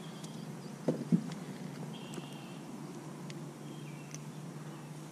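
Two quick knocks about a second in, over a steady low hum, with a few faint high chirps later on.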